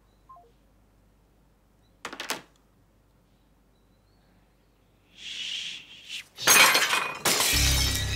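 Ceramic smashing on a hard floor: two loud crashes close together near the end, after a quiet stretch.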